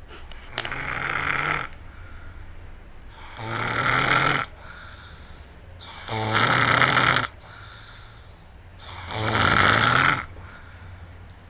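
A man snoring in his sleep: four long rasping snores on the in-breaths, about one every three seconds, with quieter breathing between them.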